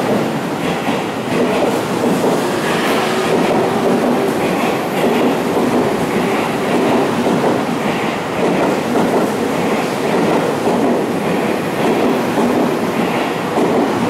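Seibu 30000 series electric train pulling out of a station, its cars rolling past close by with a steady rumble and a repeating clatter of wheels over the rail joints.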